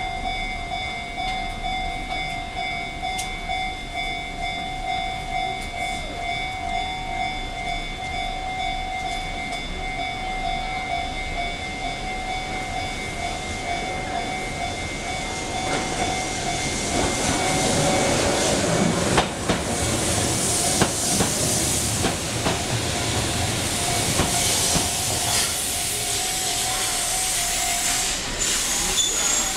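Japanese level-crossing warning bell ringing in a steady repeated pulse. From about halfway, a Keihan 700-series two-car train comes in, its wheels and running gear growing louder, with knocks over the rail joints. The bell stops near the end as the train draws alongside.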